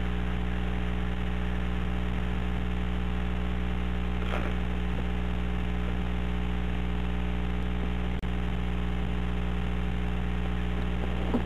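Steady electrical mains hum with many overtones on a telephone-line recording, with a momentary dropout about eight seconds in.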